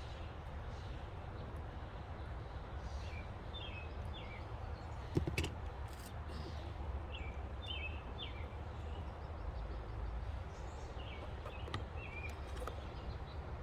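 Small birds chirping in short repeated calls over a steady low outdoor hum, with one sharp click about five seconds in.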